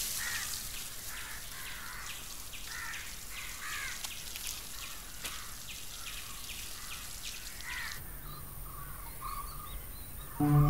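Crows cawing repeatedly over the faint steady hiss of water spraying from a garden hose. Both stop about eight seconds in and give way to faint bird chirps, and music comes in just before the end.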